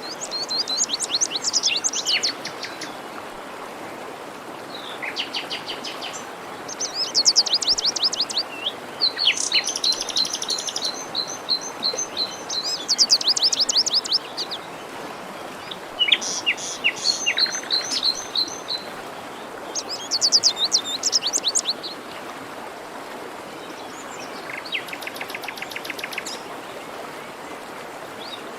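Songbirds singing short, quick trilled phrases every few seconds over the steady rush of a forest stream.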